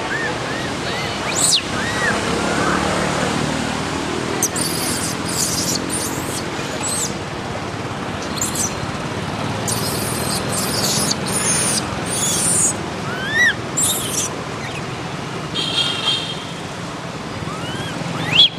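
Baby macaque crying in short, high, arched squeaks now and then, over a steady outdoor hum; a louder squeal comes near the end.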